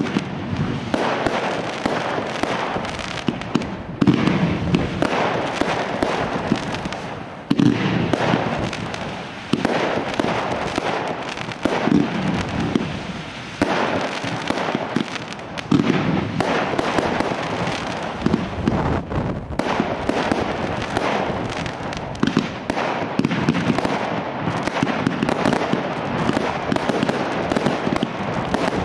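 Professional fireworks display firing without pause: a dense, continuous crackle of launches and bursts, with louder bangs every few seconds.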